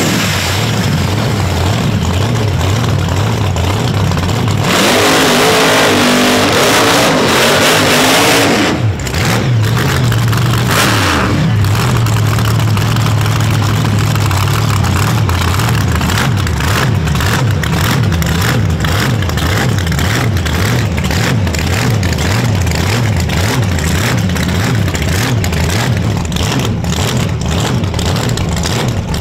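Street race car engines: one car revs and accelerates hard, its pitch rising, from about five to nine seconds in. After that an engine idles with an uneven, rhythmic lope.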